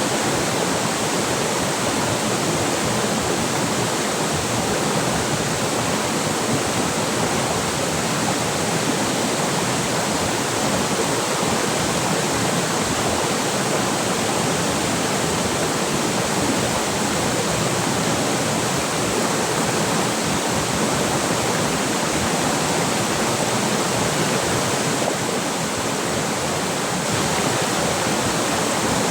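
Steady rush of flowing river water, an even hiss-like noise that keeps up without a break.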